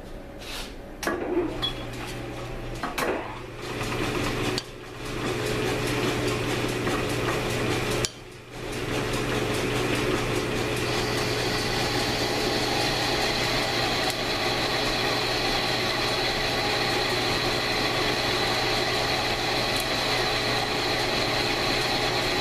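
A 1942 South Bend lathe turning down an AR15 bull barrel, with a steady hum and a cutting tone. A few sharp metal clinks come near the start as the cut is set. The lathe sound drops out briefly twice, then runs on steadily, and a higher steady tone joins about halfway through.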